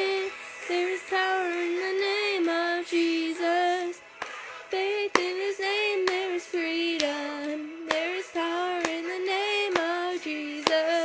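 A woman singing a worship song alone, one melodic line with vibrato in phrases broken by short breaths. A few sharp clicks sound in the second half.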